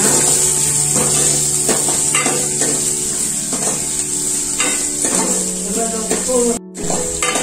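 Shallots, curry leaves and dried red chillies sizzling in hot coconut oil in a kadai, stirred with a steel spoon that scrapes against the pan in repeated strokes. The sound cuts out briefly near the end.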